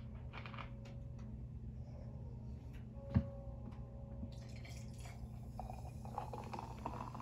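Sprite poured from a plastic bottle into a glass, splashing and fizzing with a crackle of small bubble pops, after a single sharp click about three seconds in.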